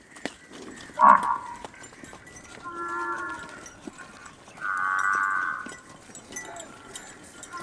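Water buffalo lowing: a brief sharp call about a second in, then two drawn-out moos, the second louder.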